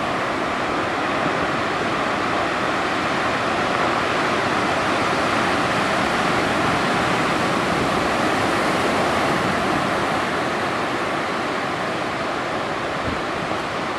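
Atlantic surf: a steady, continuous rush of breaking waves.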